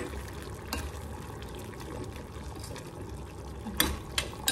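Coconut curry bubbling in a stainless steel pot on a gas burner, with a metal spoon stirring in a second stainless pan and clinking against it a few times, twice near the end.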